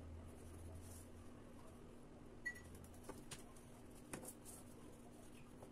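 Near silence: room tone with a steady faint hum, a brief high blip about two and a half seconds in, and a few faint clicks around three to four seconds in.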